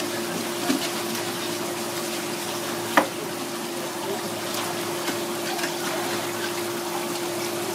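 Steady rush of running water with an even hum beneath it, and one sharp knock about three seconds in.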